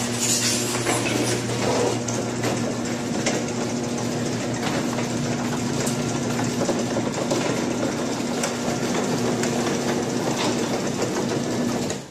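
Craftsman half-horsepower garage door opener running as it drives the door, a steady motor hum with rattling and clicking, pretty loud, stopping near the end.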